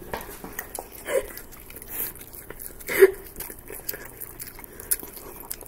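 Chewing food close to the microphone for ASMR: a scatter of small clicks and mouth smacks, with a short hum about a second in and another about three seconds in.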